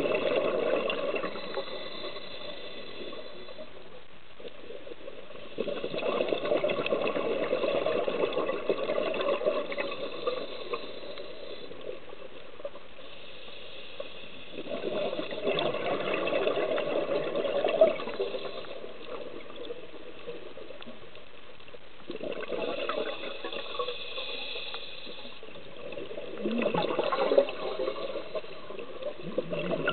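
Scuba diver's exhaled breath bubbling out of a regulator, heard underwater: gurgling bursts of bubbles lasting a few seconds, coming about every six to eight seconds with quieter pauses between as the diver breathes in.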